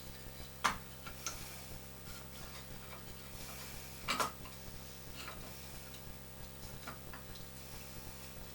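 A few scattered light clicks and knocks, the loudest about four seconds in, from a homemade wooden depth gauge being handled and set against a caster wheel to take a measurement. A low steady hum runs underneath.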